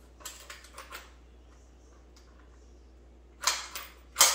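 Mossberg 715T .22 LR semi-automatic rifle being handled to clear a hollow-point round jammed in a failure to feed: a few light clicks about a quarter second in, then two sharp clacks near the end, the second the loudest.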